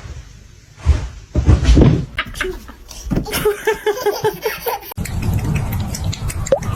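A person laughing in a run of short, quickly repeated bursts, after two dull thumps. About five seconds in the sound cuts to a low steady rumble with scattered clicks.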